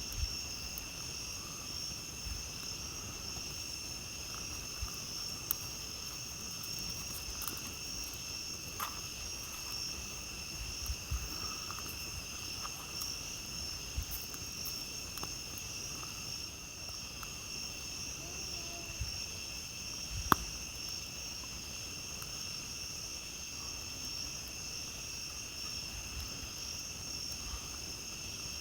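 Steady night chorus of crickets, a continuous high-pitched trilling at two pitches, with occasional sharp crackles and pops from a campfire, the loudest about twenty seconds in.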